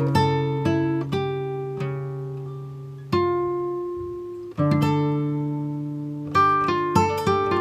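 Background music of plucked acoustic guitar: notes and chords struck and left ringing out, with one long chord fading for over a second about three seconds in before the picking resumes.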